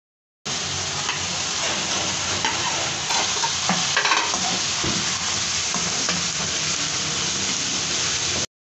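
Diced chicken and chopped carrot and capsicum sizzling in hot oil in a wok while being stirred with a metal slotted spatula, with a few clicks and scrapes of the spatula against the pan about halfway through.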